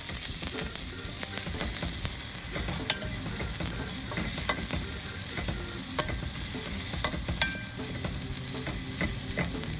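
Sliced onion and garlic sizzling in a little hot oil in a stainless steel pan, being sautéed until the onion turns translucent. A spoon stirs them, clinking and scraping against the pan every second or so.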